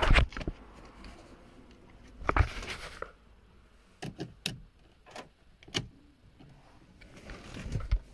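Handling noises inside a car cabin: rustling and soft knocks at the start and again about two seconds in, then a few sharp clicks about four to six seconds in, and more rustling near the end.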